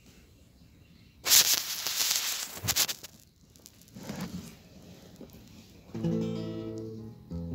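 Microphone handling noise for a couple of seconds as the phone is moved about, then an acoustic guitar strummed: a chord about six seconds in that rings and fades, and another just before the end.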